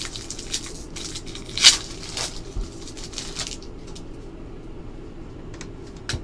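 Foil trading-card pack wrappers crinkling and tearing as packs are ripped open, with the cards handled and shuffled in the hands. The loudest rip comes about a second and a half in, and the handling turns quieter after about four seconds.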